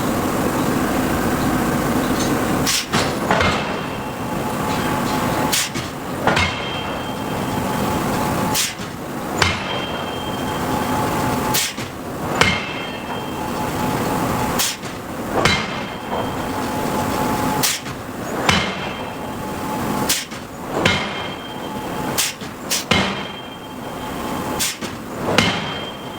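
Hydraulic forging hammer striking steel in pairs of heavy blows about every three seconds, each pair followed by a short metallic ring, over a steady machine hum.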